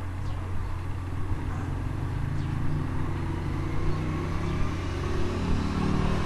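Steady low rumble with a continuous mechanical hum, like a running motor, growing slightly louder near the end.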